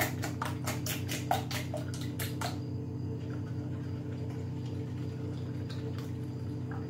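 Spiral whisk beating eggs in a stainless steel bowl, about four quick strokes a second, stopping about two and a half seconds in, over a steady low hum.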